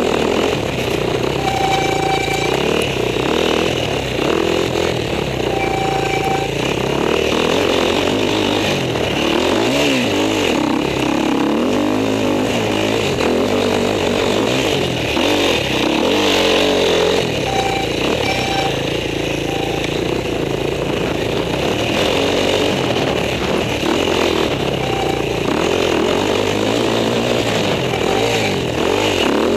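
Husqvarna enduro motorcycle engine, picked up by a helmet-mounted camera, revving up and falling back again and again as the bike is ridden hard along a trail.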